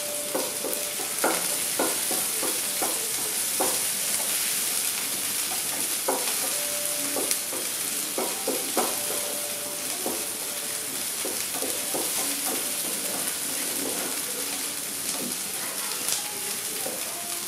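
Chopped onions and green chillies sizzling in hot oil in a nonstick frying pan, with a steady hiss. A wooden spatula stirs them, scraping and knocking against the pan at irregular moments.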